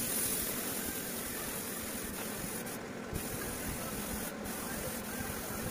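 Compressed-air spray gun hissing steadily as it sprays glue onto sofa foam, the trigger released briefly twice, about three seconds in and again a little after four.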